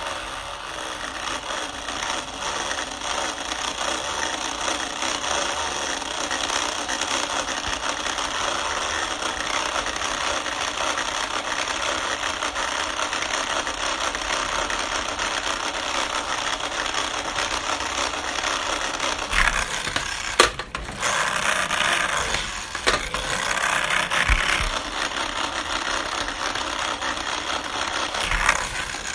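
Cooling fan of a 15-inch Mid 2010 MacBook Pro spinning at high speed with a steady rattling, grinding noise, the sign of a failing fan. A couple of sharp knocks come about two-thirds of the way through.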